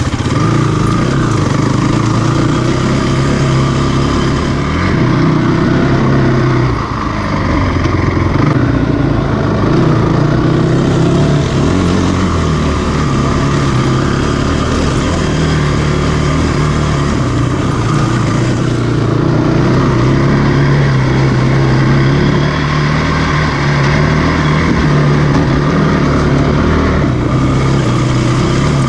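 Single-cylinder four-stroke sport ATV engine running while riding a trail, the pitch rising and falling with the throttle, with a short let-off about seven seconds in.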